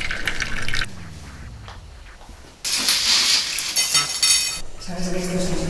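Washing up at a kitchen sink: tap water running onto plates, then about two and a half seconds in a loud clatter and splash of dishes and pans that lasts about two seconds. A steady low hum begins near the end.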